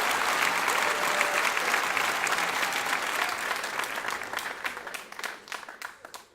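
Crowd applauding, the dense clapping thinning to a few scattered claps that fade out near the end.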